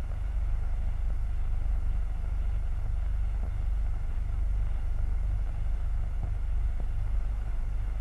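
Steady low rumble of a Ferguson tractor engine pulling a plough through soil, with a couple of faint knocks late on.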